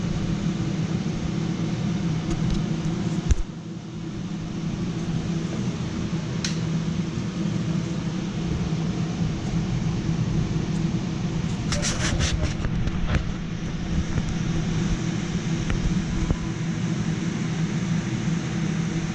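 Steady low mechanical hum of running machinery. A sharp click about three seconds in is followed by a brief drop in the hum, and there is a quick rattle of clicks around twelve seconds in.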